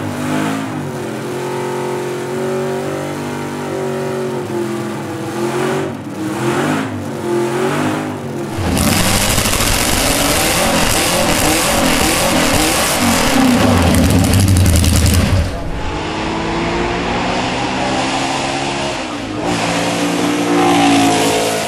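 Porsche 804 Formula 1 car's air-cooled flat-eight engine being revved repeatedly, its pitch rising and falling. A louder, harsher stretch of hard revving comes in the middle.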